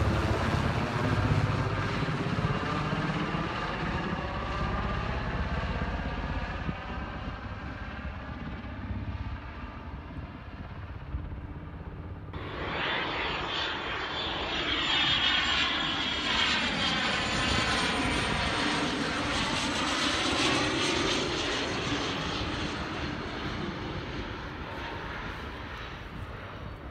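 A helicopter flying overhead. About twelve seconds in, a fixed-wing aircraft takes its place, passing low overhead: its engine noise swells to a peak a few seconds later and then slowly fades away.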